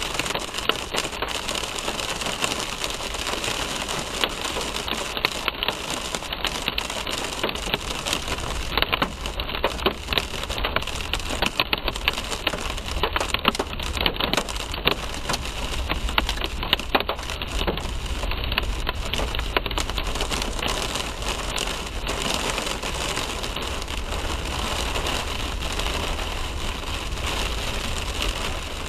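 Rain pattering on a moving car's windshield and roof, heard from inside the cabin: a dense run of quick ticks from the drops over a steady low road rumble. The ticks thin out toward the end.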